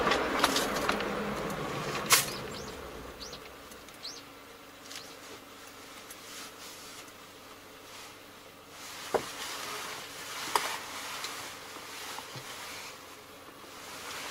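Inside the cabin of a vehicle slowing to a stop: road and engine noise fade over the first few seconds. It then idles with a faint steady hum, scattered clicks and a few short high chirps.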